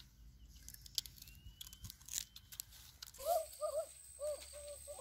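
Sharp crunching and tearing clicks of raw sugarcane stalks being bitten and chewed. About three seconds in, a steady high whine sets in, with a run of short warbling bird-like calls.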